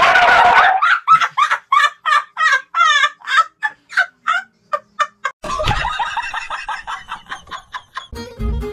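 A quick run of short, falling, turkey-like gobbling calls, about three a second, lasting some four seconds after a loud opening burst. It gives way to a stretch of rustling noise with scattered clicks.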